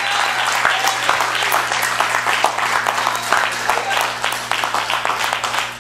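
A church congregation applauding in praise, with steady dense clapping and voices calling out among it.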